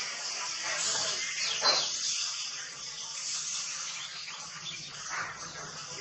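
Steady outdoor background hiss with a few faint, brief clicks and chirps.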